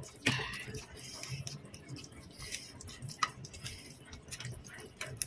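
Instant noodles and rice vermicelli being tossed and mixed in a bowl with two plastic forks: soft wet squishing, with a few light clicks of the forks against the bowl.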